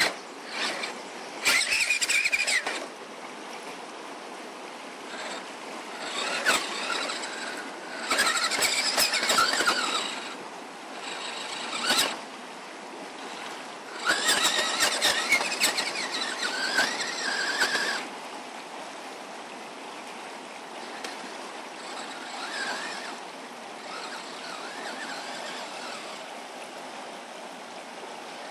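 Electric motor and gearbox of a Radio Shack Off Roader RC truck converted to hobby-grade parts, whining in several short throttle bursts that rise and fall in pitch as it crawls, with clicks and scrapes of the tyres on rock. The bursts are weaker in the last third.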